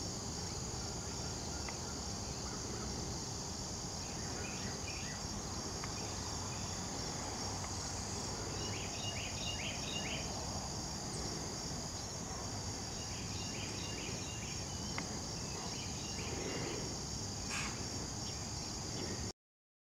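Insect chorus: a steady high-pitched drone over a low background hiss, with clusters of short chirps about halfway through and again a few seconds later. The sound cuts off suddenly near the end.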